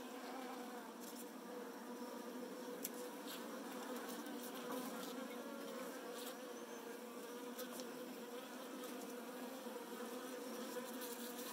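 A package of Saskatraz honeybees buzzing in a steady, even hum, with a few faint ticks.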